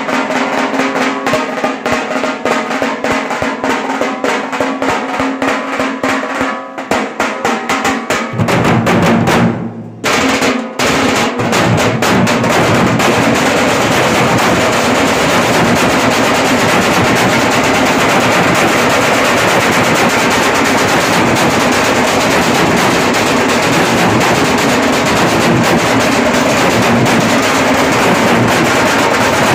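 Dhol pathak drum troupe playing large steel-shelled dhols beaten with sticks in a fast, loud rhythm. About ten seconds in the playing breaks off briefly, then comes back as a dense, continuous roll.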